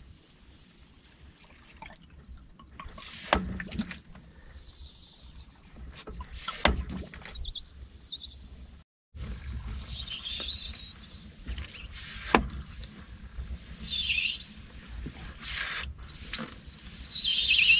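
Hand siphon pump drawing old gasoline from a fuel tank, its stiff shaft giving a long, high squeak on each stroke every few seconds, with a few sharp knocks in between. The pump is hard to work, which the owner puts down to gummy grease or a melting seal on the shaft.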